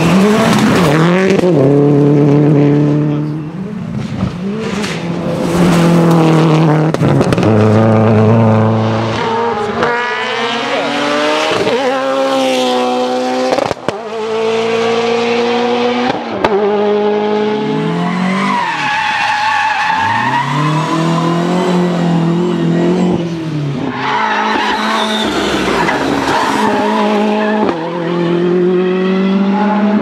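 Several rally cars, one after another, driven flat out: engines revving high and climbing through the gears, then dropping away on lifts and braking, with tyre squeal and skidding in the corners.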